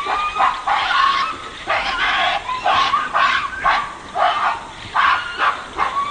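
Female western lowland gorillas fighting: a rapid run of short screaming cries, about two a second.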